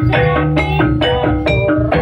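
Jaranan dance music: a gamelan-style ensemble of drums and struck metal keys playing a quick, evenly repeating pattern of short notes over a sustained low tone.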